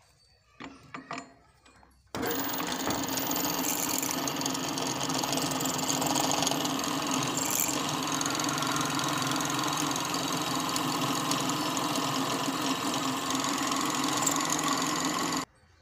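Drill press running, its bit cutting a small hole into a cast leveling-box housing: a steady machine hum with cutting noise. It starts about two seconds in, after a few light clicks, and stops abruptly near the end.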